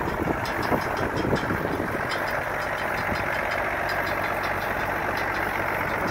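1989 Dodge Ram D250's 5.9-litre Cummins 12-valve turbo-diesel inline-six idling steadily, with a regular light tick about six times a second.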